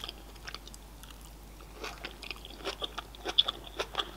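Close-miked chewing of a mouthful of salad, with tomato and crisp cabbage leaves. Soft for the first second and a half, then wet clicks and crunches come thick from about two seconds in.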